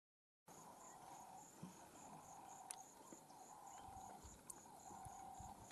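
Faint insects chirping in a high, evenly repeating pulse over quiet outdoor ambience, after half a second of silence at the start.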